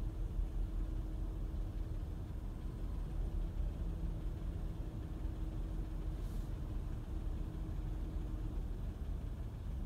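Steady low engine rumble with a faint hum, heard from inside a car's cabin through the window glass.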